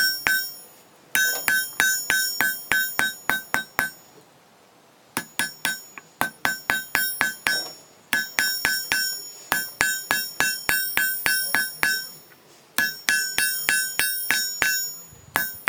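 Hammer blows on hot steel over a blacksmith's anvil, each strike ringing out at the same pitch, about three or four a second, in runs of several blows with short pauses between them. The bar is being drawn out thinner toward a point.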